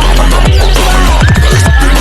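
Loud electronic dance music in a dubstep or drum-and-bass style, with a heavy bass line and repeated falling bass sweeps.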